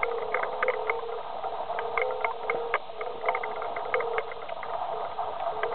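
Pig chewing cherries, the pits crunching in short, irregular clicks several times a second, over a steady mechanical hum in the background.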